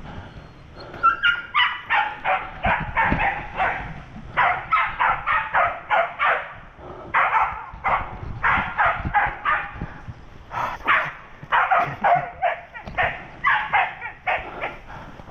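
Hunting dogs barking in fast runs of several barks, about three to four a second, with short pauses between runs: dogs baying at a civet they have found.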